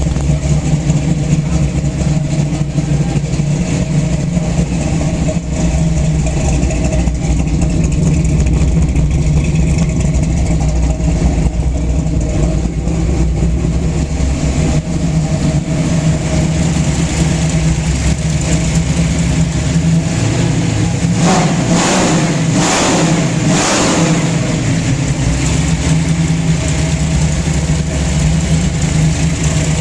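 Camaro's carbureted engine with a Comp Cams camshaft and Flowmaster exhaust idling steadily, blipped three times in quick succession about two-thirds of the way through, then settling back to idle.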